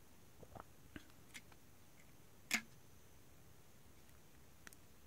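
A few faint clicks and taps as a small plastic remote control is handled, with one sharper click about two and a half seconds in.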